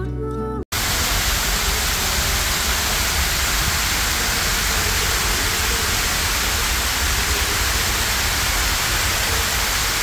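Water rushing down a stepped stone cascade fountain, a steady full rush heard close up. Background music plays briefly at the start and cuts off under a second in.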